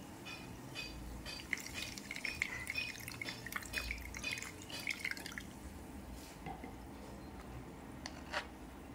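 Water poured from a cup over a coin held above a plastic tub, splashing and dripping into the liquid. The splashing dies down about two-thirds of the way in, and a single click follows near the end.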